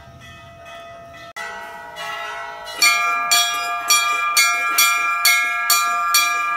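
Hanging brass Hindu temple bells being rung over and over, about two strikes a second, each clang ringing on into the next. The ringing starts fainter and becomes much louder about three seconds in.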